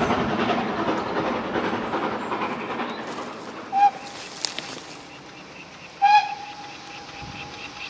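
Rumble and rail clatter of a just-passed train fading away, then a GWR Manor-class steam locomotive's whistle: a short blast about four seconds in and a longer, held blast about six seconds in. Faint exhaust beats of the approaching engine start near the end.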